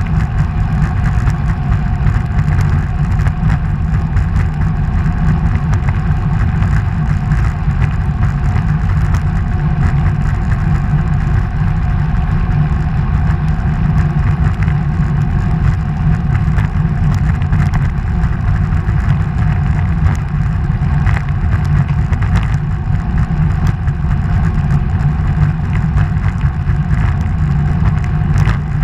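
Steady low rumble of road travel through a road tunnel: wind and road noise on the camera's microphone, unchanging throughout.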